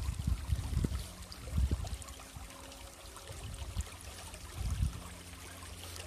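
Shallow creek trickling over rocks and pebbles. Low bumps on the microphone come in the first two seconds and again about five seconds in.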